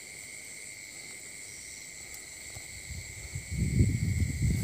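Steady night insect chorus, crickets trilling at a constant pitch. About three and a half seconds in, a louder rough rustling comes in over it.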